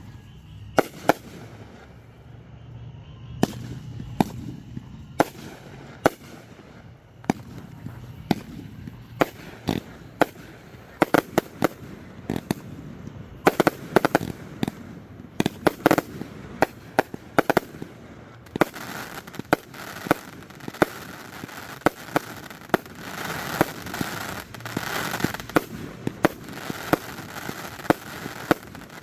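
Aerial fireworks show: a steady run of sharp shell bursts, several a second, coming thicker from about halfway, with a dense rushing hiss building under the bangs in the last third.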